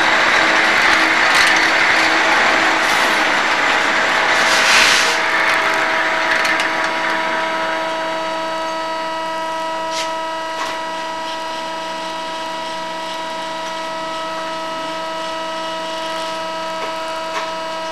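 Hegenscheid 105 underfloor wheelset lathe turning a railway wheel: the tool cuts the tread over a steady multi-tone machine whine. A loud hiss of cutting noise fills the first six seconds or so, then fades, leaving the whine with a few sharp clicks.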